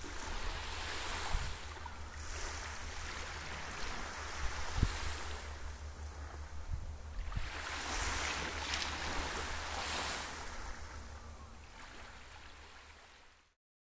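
Sea waves washing ashore in slow surges a few seconds apart, over a steady low rumble; the sound fades out near the end.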